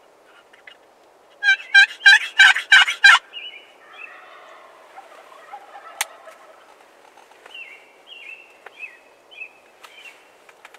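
Merriam's wild turkey gobbler gobbling once loudly, a rapid rattling burst of about a second and a half, followed by softer short turkey calls.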